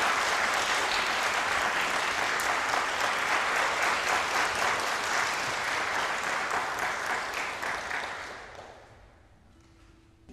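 Audience applauding, a dense patter of clapping that dies away about eight to nine seconds in.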